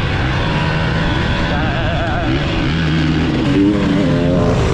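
Dirt bike engine riding a motocross track, its pitch climbing and dropping several times as the throttle opens and closes and the gears change.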